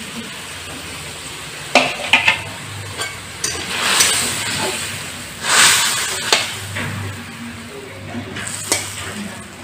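A metal spatula stirring and scraping small fish in a mustard-gravy curry that sizzles in a metal wok, with several sharp clinks of the spatula against the pan.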